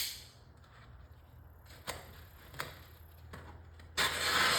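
Handling noise from a vinyl stripe and its paper backing being worked on a car panel: a sharp click at the start, two faint ticks, then a short rasping swish of paper or vinyl near the end.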